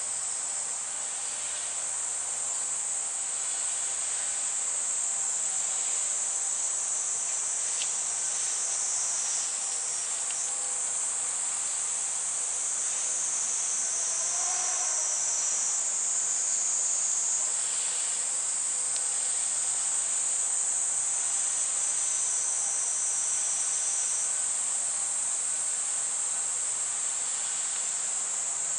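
A dense chorus of insects shrilling steadily at a high pitch, without a break.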